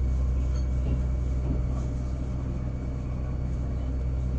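Fujikyu 8500 series electric train heard from inside the driver's cab as it rolls slowly into a station platform: a steady low rumble and hum.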